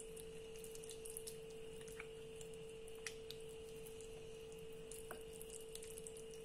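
Faint wet squishing and soft sticky clicks of a hand rubbing thick marinade into a raw leg of lamb, over a steady faint background tone.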